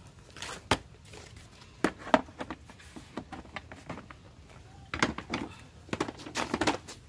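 Plastic storage box lid being fitted and pressed shut: sharp plastic knocks and clicks, a few near the start, then clusters of clatter around five and six seconds in as the box is handled and lifted.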